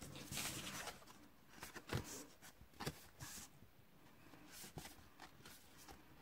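Sheets of cardstock being handled and bent by hand: faint paper rustling near the start, then a few soft taps.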